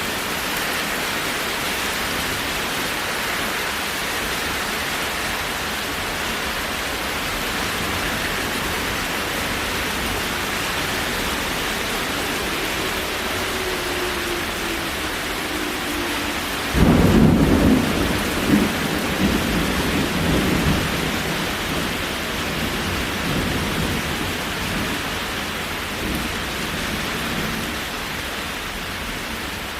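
Steady rain with a loud thunderclap about 17 seconds in, rolling on as rumbling for several seconds. Shortly before the clap, a faint siren tone sinks slightly in pitch and fades out.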